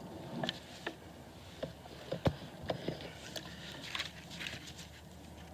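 Water poured from a plastic bottle onto a freshly dug coin, then gloved fingers rubbing it clean: scattered small clicks and rustles, with one sharper click a little over two seconds in.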